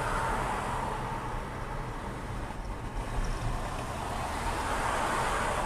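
Steady road noise inside a moving car: tyre and engine rumble with a broad rush, picked up by a dash cam behind the windscreen.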